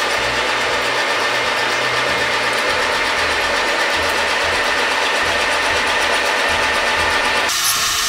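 Metal lathe running and turning a rifle barrel blank: a steady mechanical whir of the spindle and gearing, with the cutting noise of the tool on the steel. The sound changes abruptly near the end.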